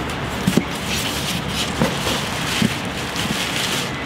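A cardboard shipping box and plastic bags handled during unpacking: a few dull knocks and rustling, over a steady background hiss.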